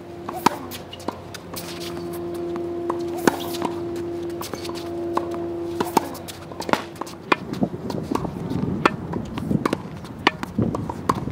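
Tennis balls struck by rackets and bouncing on a hard court: a quick run of sharp pops and taps. A steady hum runs under the first half, and a low rumbling noise comes in after about seven seconds.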